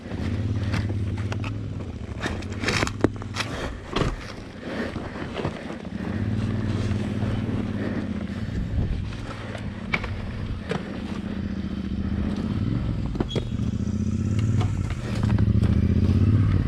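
Royal Enfield Himalayan's single-cylinder engine comes in at the very start and runs at low revs as the bike crawls over a rocky dirt trail. Sharp knocks and scrapes of stones and rattling parts come throughout, thickest in the first few seconds.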